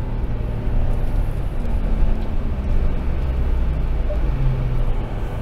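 Ram TRX's supercharged 6.2-litre Hemi V8 running steadily under light load, heard from inside the cab, over a heavy low rumble of tyres and chassis on a dirt track.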